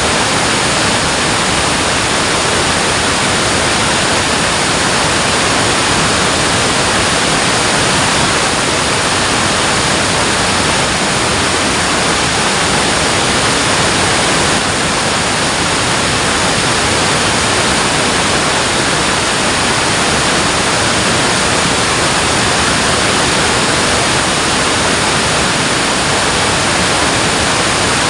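Water rushing steadily over a dam spillway: a loud, constant roar of falling and churning water.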